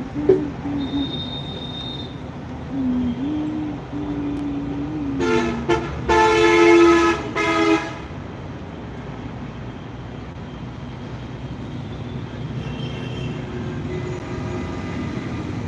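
A vehicle horn honking about five seconds in: two short toots, then a steady blast of about two seconds, over a constant low rumble.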